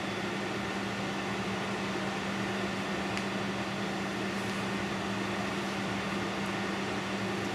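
Steady background hum and hiss with a low held tone, like a fan or air-handling unit running, with one faint tick about three seconds in.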